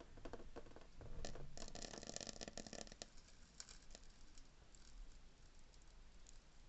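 Faint crackling and sizzling from a Koln 80-litre electric water heater's dry heating elements as they heat up. The crackle is dense between about one and three seconds in, then thins to scattered clicks. The owners put it down to water left on the elements from handling them with wet hands.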